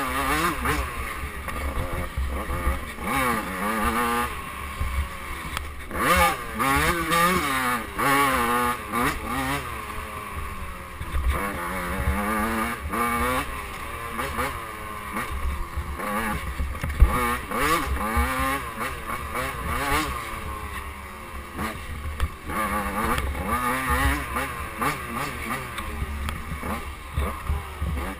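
KTM 85cc two-stroke dirt bike engine revving up and down over and over as the throttle opens and closes and the gears change on a rough trail. A sharp knock partway through.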